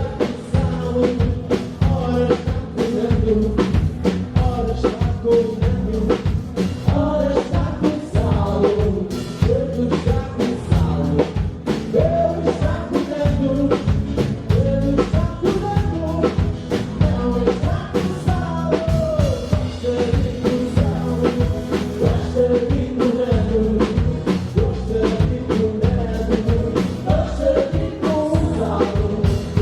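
Live band music played on stage: drum kit keeping a steady beat under a melody and singing.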